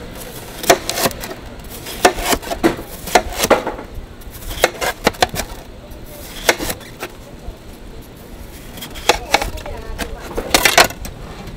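Chef's knife slicing through a watermelon into wedges, the blade knocking sharply on a plastic tray at the end of each cut. The knocks come irregularly, singly and in quick clusters.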